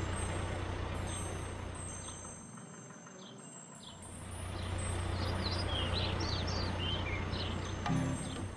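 Cartoon truck engine running as a steady low hum that fades out in the middle and comes back, with birds chirping over it. Music starts right at the end.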